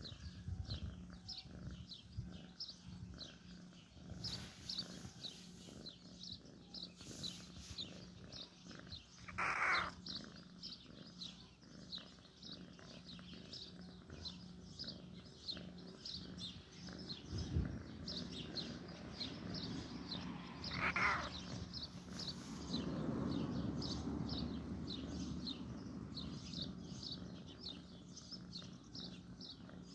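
A bird chirping steadily outdoors, short high chirps about two to three times a second, with a couple of louder calls.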